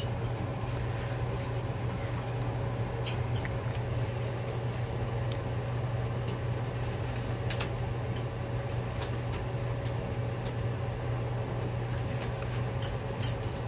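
A steady low hum, with scattered light splashes and taps as a macaw dips into a steel water bowl and flaps its wet wings while bathing.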